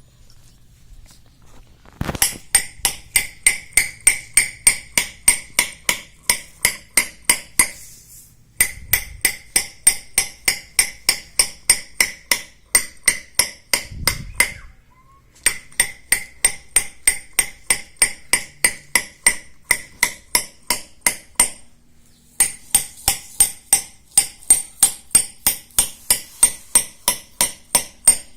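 A hammer rapidly tapping a metal chisel to peck small holes into the grinding face of a stone shil pata, about four strikes a second with a metallic ring. The taps come in runs broken by brief pauses.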